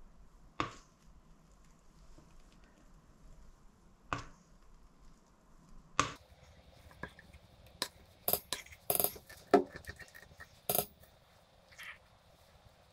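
Stainless steel bowls clinking and knocking as thick sponge batter is scraped from one bowl into another with a spatula: a few separate knocks over the first six seconds, then a quick run of sharp metallic clinks a couple of seconds later.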